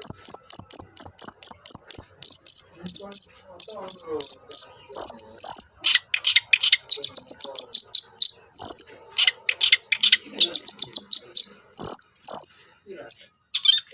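Long-tailed shrike (pentet/cendet) singing: a fast run of repeated high notes, about five a second, then a varied, rapid stream of chirps and trills, with a short lull near the end.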